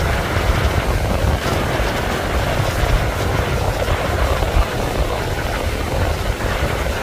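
Strong wind buffeting the microphone in a flickering low rumble, over the steady wash of breaking surf.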